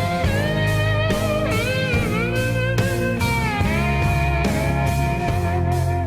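Rock music with electric guitar lead lines bending in pitch over a steady beat.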